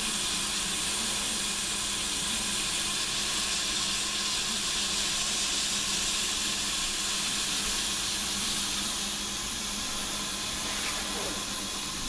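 Steady hiss of a saucepan of melting snow heating on a lit gas stove burner.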